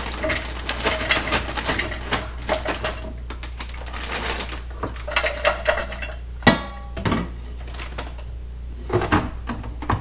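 Frozen french fries rattling and clattering out of their bag into a container for cooking, with the bag crinkling. One sharp metallic clank rings about six and a half seconds in, and a few knocks follow near the end.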